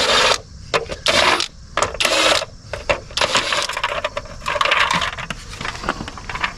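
Several short bursts of rapid metallic rattling and clinking from work on the Suburban's wheel lug nuts, each lasting under a second.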